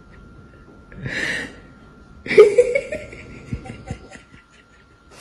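A person laughing: a breathy burst about a second in, then louder laughter just after two seconds that trails off in short pulses.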